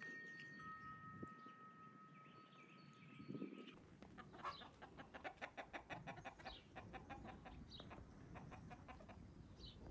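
Chickens clucking faintly, in a quick run of short calls through the second half, over a low rumble that comes in about four seconds in.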